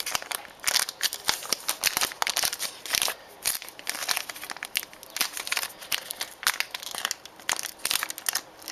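Trading-card pack wrapper being torn open and crinkled by hand, a dense run of irregular crackles.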